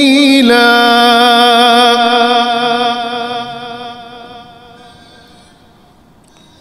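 Male Quran reciter's voice holding a long chanted note of tilawat, stepping down in pitch about half a second in and then sustained with a slight waver. The note fades away over the next few seconds, leaving a quiet pause.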